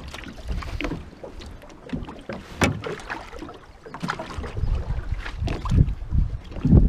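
Wind rumbling on the microphone, with scattered knocks and bumps from a person moving about in an aluminium fishing boat while releasing a lake trout over the side; a heavier thump comes near the end.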